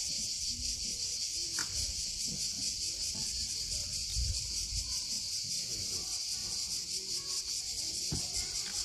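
A chorus of cicadas buzzing steadily in a dense, high-pitched shrill, with faint low rustling underneath.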